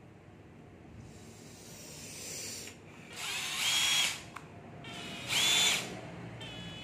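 Makita cordless oil-pulse (hydraulic impulse) driver run in two short trigger bursts, about three seconds in and again about five seconds in, each a steady high whine.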